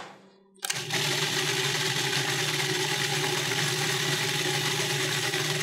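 Food processor motor switching on about half a second in and running steadily, its blade whirring through a thick basil pesto.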